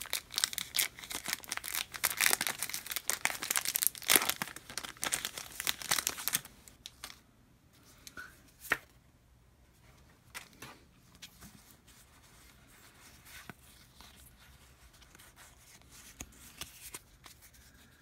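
Foil wrapper of a Pokémon trading card booster pack being crinkled and torn open, a dense crackling for about the first six seconds, then only a few faint clicks.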